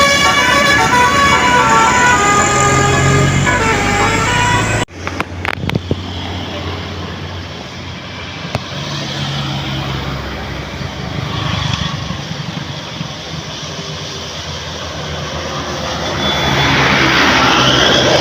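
Bus 'telolet' musical air horn playing a melody of held notes that step up and down, cut off abruptly about five seconds in. Traffic noise follows, with a heavy vehicle's engine hum, and the noise swells near the end as another vehicle approaches.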